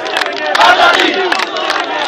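Large crowd of men shouting together, many voices overlapping in a continuous din.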